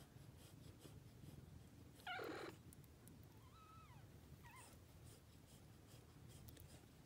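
Two-day-old kittens crying: one short, louder hiss-like squeal about two seconds in, then two faint, thin mews, over a steady low purr from the nursing mother cats.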